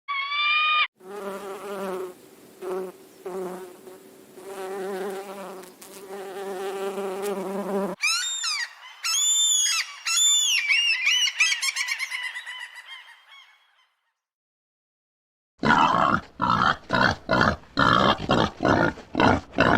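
A string of different animal sounds, one after another: a buzzing hum like a fly or bee for several seconds, then a run of high, arching chirps that fade away, and after a short silence a rapid series of rasping pulses, about three a second.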